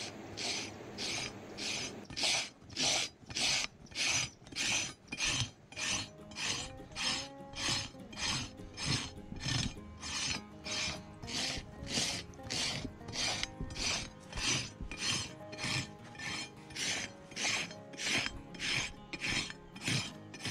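A farrier's hoof rasp filing a horse's damaged hoof in steady back-and-forth strokes, about two a second.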